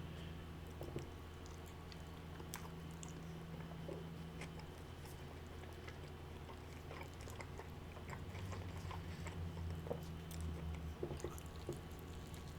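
A person chewing and eating, with faint, scattered wet mouth clicks and smacks over a steady low hum.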